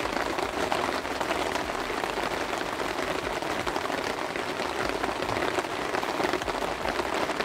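Heavy rain falling steadily, a dense patter of drops, heard from inside a fishing bivvy.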